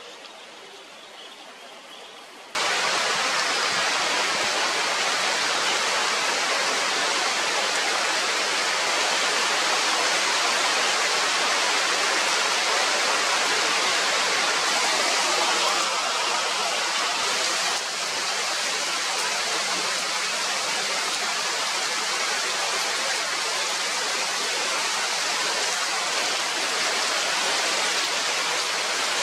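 Heavy rain pouring steadily onto forest foliage, a dense, even hiss. It cuts in suddenly about two and a half seconds in, after a much quieter opening stretch.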